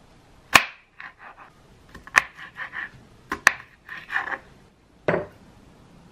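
Serrated kitchen knife cutting broccoli florets on a plastic cutting board: about five sharp knocks of the blade hitting the board, with short crisp crunching and scraping as it saws through the stems between them.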